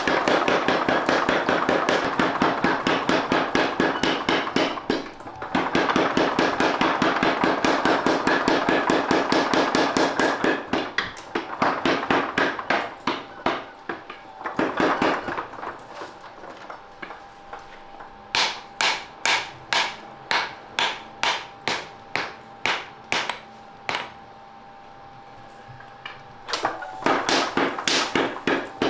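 Mechanical power hammer pounding a red-hot steel knife blank in long runs of rapid, even blows, several a second. Between the runs come slower, separate ringing strikes on the hot metal.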